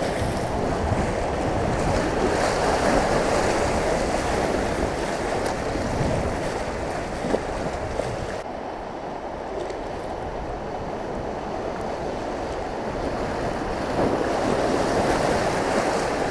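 River rapids rushing and splashing around an inflatable kayak as it runs through choppy whitewater, with wind buffeting the microphone.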